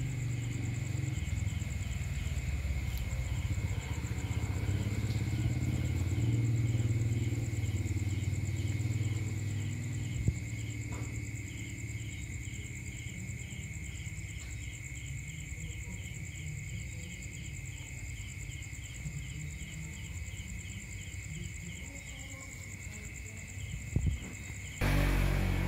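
Night insects: a steady high-pitched trill with an even chirping of about two a second, over a low rumble. About a second before the end the sound jumps suddenly louder and fuller.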